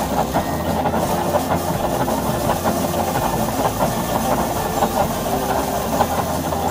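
Powered rice threshing machine running steadily as rice sheaves are fed into it: a constant low hum under an even rushing noise, with no pauses.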